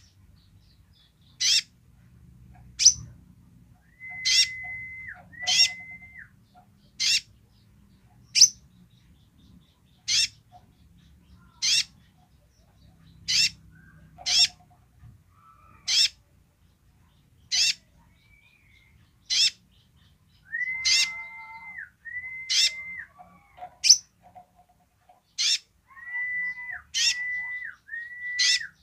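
Caged male sunbird (kolibri ninja) calling: sharp, high chirps that sweep downward, repeated about every second and a half, with short runs of level whistled notes in between.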